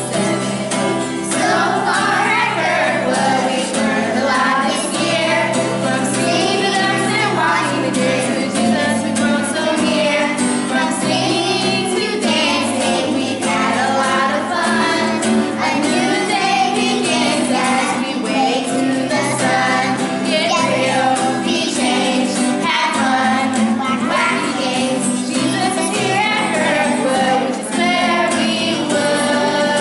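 A group of children and women singing a song together, accompanied by a strummed acoustic guitar.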